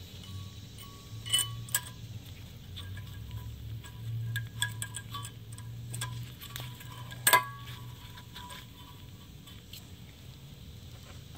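Thin steel brake-pad abutment clips clicking and clinking as they are pressed into a rear disc-brake caliper bracket, with a sharp snap about seven seconds in as a clip seats, over a low steady hum.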